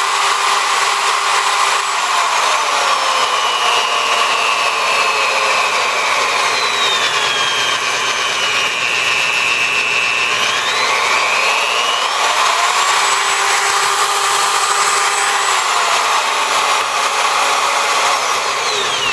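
Milwaukee 4204-1 magnetic drill press motor running free, its speed changed with a screwdriver at the exposed speed potentiometer because the speed dial has broken off. The motor whine slowly falls in pitch, climbs back up quickly about two-thirds of the way through, then falls again near the end.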